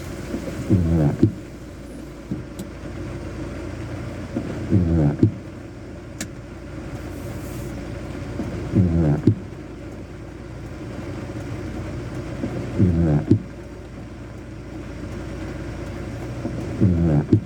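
A short mechanical sweep ending in a sharp click, repeating at an even pace about every four seconds, five times, over a steady low rumble.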